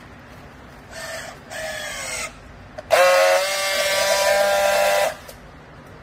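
Handheld strapping tool working a plastic strap around a bale: two short motor whines, the second falling in pitch as the strap is drawn tight, then a click and a louder, steady buzz of about two seconds as the tool friction-welds the strap, cutting off suddenly.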